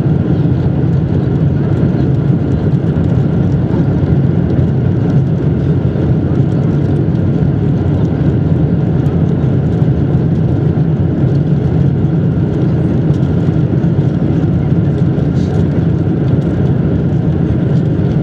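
Steady low drone of a Boeing 747-200's jet engines and airflow heard from inside the cabin in flight after takeoff, holding an even level throughout.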